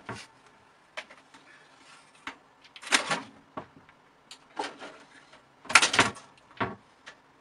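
A cat's paws and claws knocking and scraping against a computer tower's case: scattered light taps and clicks with a few short scrabbling scrapes, the loudest about three seconds in and again near six seconds.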